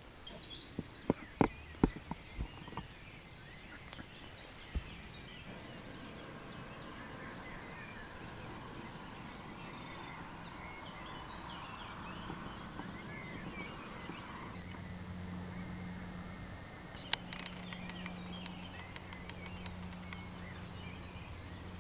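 Dawn chorus of many birds singing over the lake, faint against a soft outdoor hiss. There are a few sharp knocks in the first seconds, and a steady low hum comes in about two-thirds of the way through.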